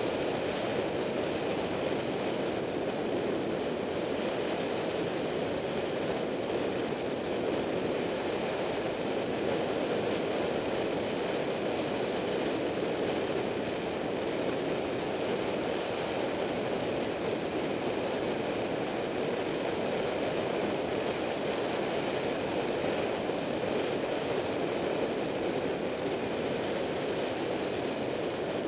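Steady rushing wind and road noise from a vehicle driving along at speed, with no distinct engine note.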